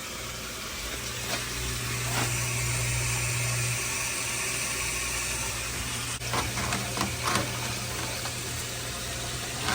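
Whirlpool dishwasher drain pump running, a steady low hum with water rushing as it pumps the tub out; the pump is working normally. The hum is strongest for the first few seconds, then settles lower, with a few light knocks later on.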